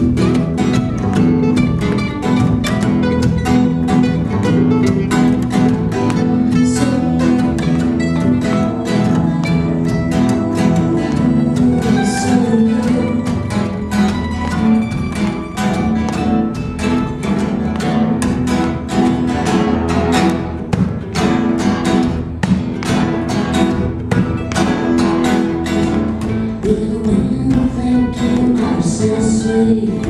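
Acoustic string band of guitar, mandolin and bass playing live, with busy picked and strummed notes over a steady bass line.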